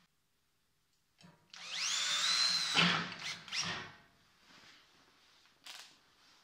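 Handheld power drill spinning up with a rising whine about a second and a half in, running for about a second, then stopping sharply, followed by two short bursts on the trigger.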